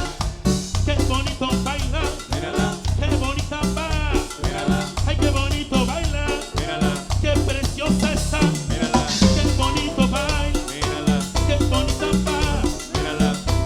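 A live band plays up-tempo Latin tropical dance music, with a steady bass pulse, drum kit and a melodic lead.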